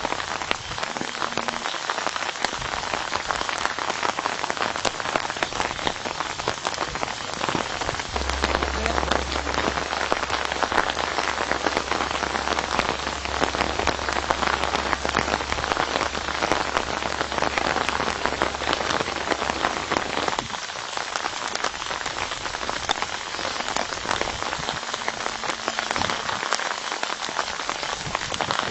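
Steady rain pattering down, a dense, even patter of drops through the whole stretch.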